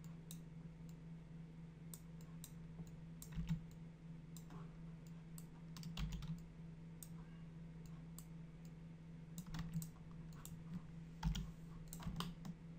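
Scattered computer keyboard and mouse clicks, a dozen or so at irregular intervals, over a steady low electrical hum.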